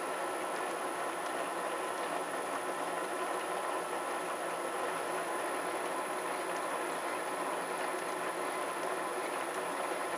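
A metalworking machine tool running steadily: an even mechanical noise with several steady tones through it, including a thin high-pitched one.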